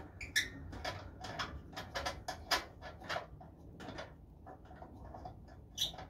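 Irregular metal clicks and ticks as the gas fitting is worked loose at the side of a Coleman two-burner propane camp stove. The sharpest clicks come about half a second in, about two and a half seconds in and near the end.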